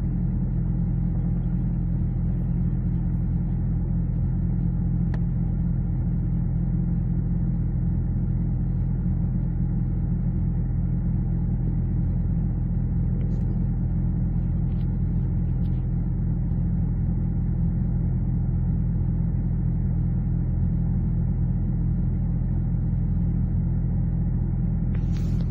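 Steady low droning rumble with several held low tones, unchanging throughout, with no clear source: one of the reported unexplained sky noises.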